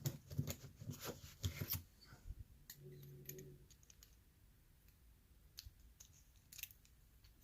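Small metal clicks and scrapes of lock-picking tools against a pin-tumbler lock being worked and taken apart: a quick run of clicks in the first two seconds, then a few sparse ticks.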